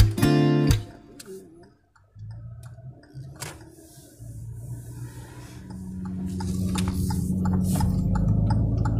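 Strummed acoustic guitar music cuts off within the first second. Then a car's cabin noise while driving: a steady low engine hum that grows louder from about halfway through, with a few scattered light clicks.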